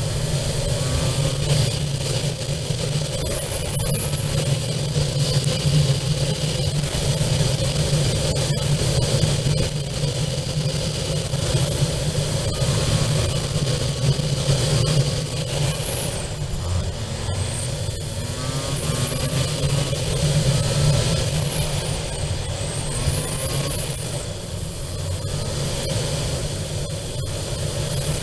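Motorcycle engine running steadily at cruising speed, with wind rushing over the bike-mounted camera's microphone.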